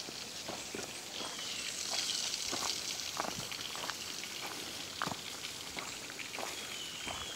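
Footsteps crunching through dry leaf litter and twigs on a dirt trail, an uneven run of crackles.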